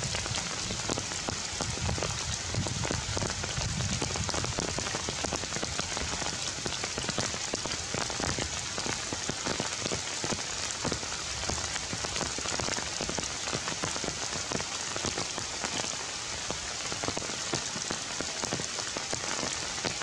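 Steady rain falling on forest leaves: a dense, even patter of drops.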